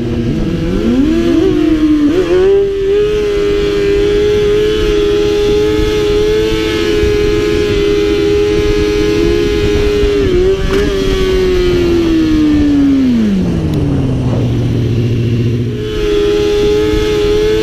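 Sport motorcycle engine heard on board, held at high, steady revs. About twelve seconds in the pitch slowly falls to a low, idle-like note for a couple of seconds, then jumps back up near the end.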